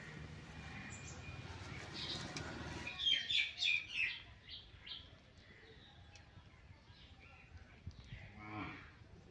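Faint farmyard animal and bird calls: a quick run of loud chirps about three seconds in, with a cow lowing in the background.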